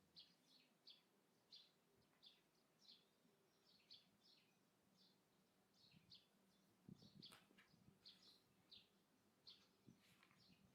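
Small songbirds chirping faintly outdoors, short repeated high chirps about two or three a second, with a brief soft rustle about seven seconds in.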